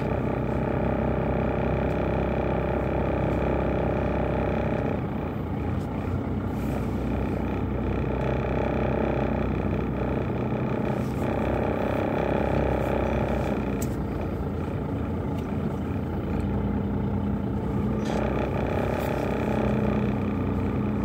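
A 12-valve Cummins 5.9-litre inline-six turbo diesel running under way, heard from inside the cab. Its note changes a few times as the six-speed manual gearbox is shifted through the gears.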